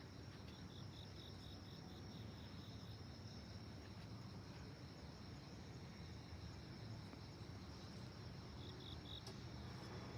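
Faint insect chirping: a steady high trill, with a second pulsed chirp about four times a second near the start and again briefly near the end, over a low background rumble.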